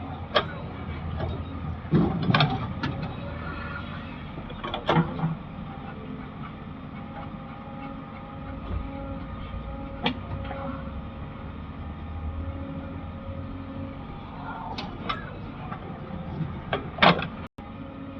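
Diesel engine of a working backhoe loader running steadily, with sharp clanks and knocks now and then as the machine works, the loudest near the end.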